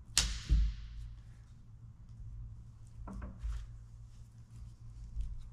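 Heavy International Harvester 1066 PTO housing being handled on a workbench: a sharp metal clank right at the start and a heavy thud just after, then a few lighter knocks about three seconds in.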